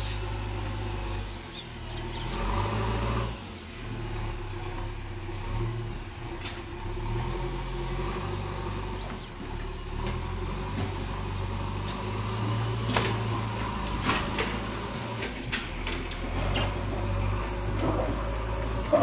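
Backhoe loader's diesel engine running, its low drone rising and falling with the load as it digs, with a few sharp knocks scattered through.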